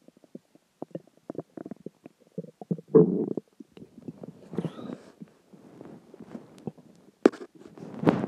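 Human stomach growling: an irregular run of short gurgles and bubbling pops, with one loud, longer gurgle about three seconds in and two sharp pops near the end. It is the sound of gas and fluid shifting through a full stomach after dinner and water.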